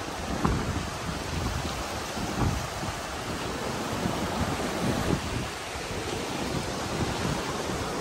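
The Animas River rushing as fast, churning whitewater below a footbridge, a steady rushing noise, with gusts of wind buffeting the microphone.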